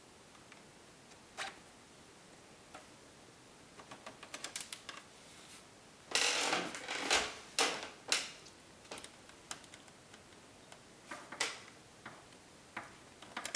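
Scattered light clicks and ticks of a small screwdriver turning out the tiny screws that hold a laptop's LCD panel in its frame, metal tool on screws and plastic. About six seconds in there is a louder run of clatter lasting about two seconds.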